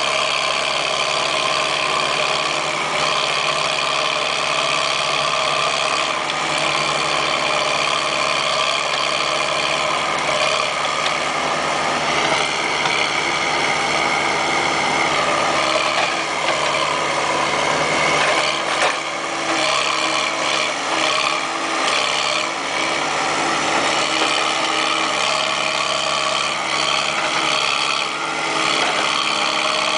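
Backhoe engine running steadily, with a few short knocks in the middle.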